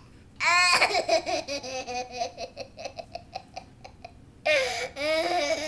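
A baby's laugh: a high squeal breaks into a quick run of short even giggles. About four and a half seconds in, a second run of babbling sounds starts.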